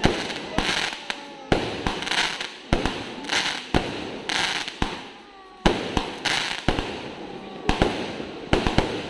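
A mercun merdeka multi-shot firework firing aerial shells in quick succession: a sharp bang about every half second to second, each followed by the crackling hiss of the bursting stars.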